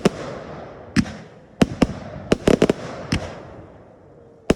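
Fireworks going off: an irregular string of sharp bangs, with a quick cluster of reports about two and a half seconds in, each followed by a fading crackle. The bangs ease off for a second or so before a fresh burst right at the end.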